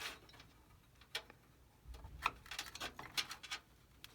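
Light clicks and taps of a CPU heatsink-and-fan assembly being handled and seated back onto the processor. There is a single click about a second in, then a cluster of several quick clicks in the second half.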